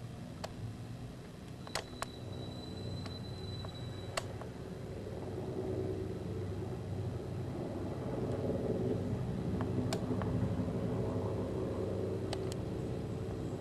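Helicopter flying overhead: a low rotor and engine rumble that grows louder through the second half, with a few sharp clicks.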